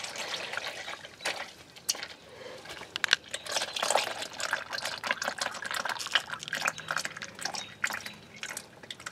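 Warm gear oil draining from a car's front differential drain hole in a stream, falling and spattering below with an irregular patter of drips and splashes; the stream narrows to a thin trickle.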